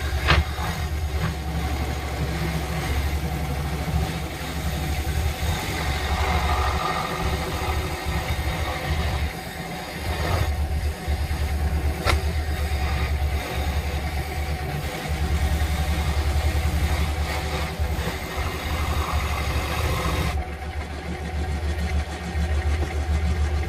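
Woodstar SD 16 electric scroll saw running, its blade reciprocating as it cuts a wooden board, a steady hum with a rough sawing noise over it. Near the end the sawing noise drops away and leaves the lower hum of the saw.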